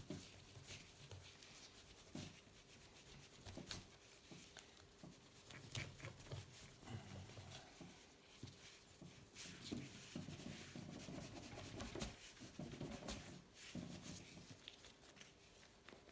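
Faint, irregular rubbing of a polishing cloth on a small die-cast toy car body, with small clicks and handling noises scattered through.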